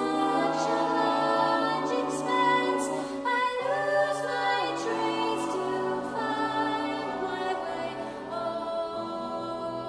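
Mixed a cappella vocal ensemble of ten women and men singing held chords without accompaniment, the harmony shifting about three and a half seconds in and again about eight seconds in.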